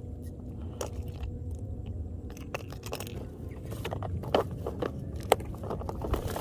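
Fishing lures and tackle being handled and rummaged through: scattered small clicks, taps and rustles, over a low steady rumble.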